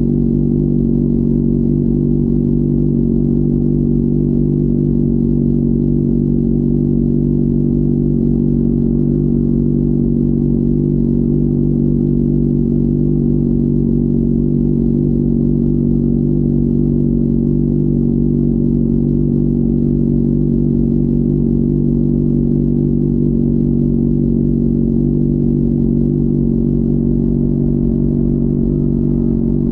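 Honda CBR600RR's inline-four engine running at a steady, unchanging pitch, with no revving or gear changes.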